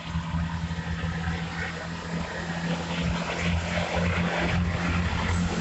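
Two coupled Class 165 Turbo diesel multiple units pulling away under power. Their underfloor diesel engines give a steady low drone that grows a little louder.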